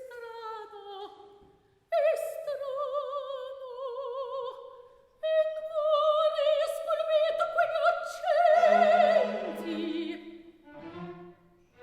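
Classical music with an operatic solo voice holding long notes with wide vibrato, in three phrases; lower accompanying notes join in near the end.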